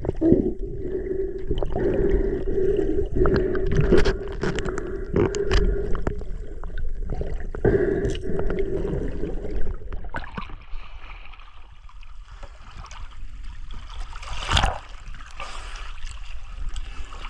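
Water sloshing and gurgling around a GoPro at the surface, with scattered knocks and a steady hum over the first ten seconds. After that it goes quieter, with one sharp knock near the end.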